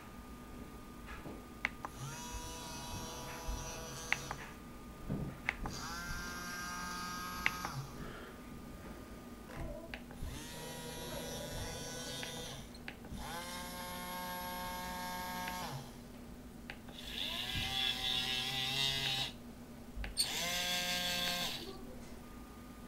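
OWI-535 robot arm's small DC gear motors whining in six short runs of one to two and a half seconds each, with brief pauses between. Each run rises in pitch as the motor spins up.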